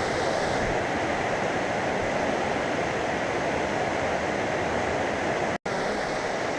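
Shallow mountain stream rushing and splashing steadily over rocks. The sound drops out for an instant about five and a half seconds in.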